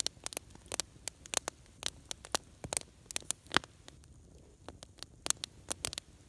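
Campfire logs crackling and popping, with irregular sharp pops several times a second.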